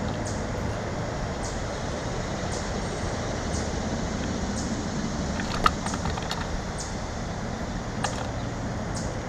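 Steady outdoor background rumble, with faint short ticks about once a second and a sharp click a little past halfway.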